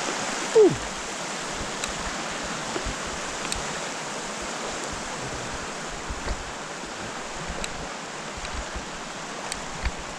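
Steady rushing of a mountain stream, an even hiss of flowing water. About half a second in there is a brief falling tone, and a few faint clicks come through it.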